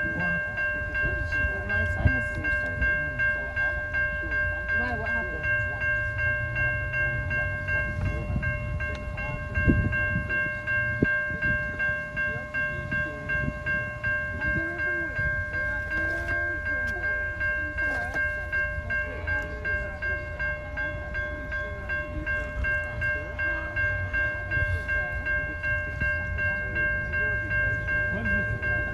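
Level crossing warning alarm sounding continuously while the boom gate is down, a steady multi-tone ring over a low rumble, heard from inside a car.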